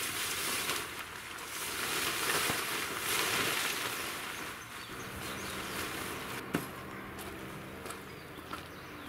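Tent fabric rustling and swishing as the rain fly of a Coleman dome tent is pulled off. From about five seconds in a low steady hum sits underneath, with one sharp click.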